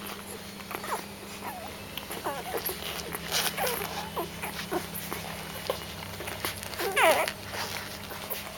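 Young Doberman puppies squeaking and whimpering, many short high cries that slide in pitch and overlap, the loudest a little before the end, over a low steady hum.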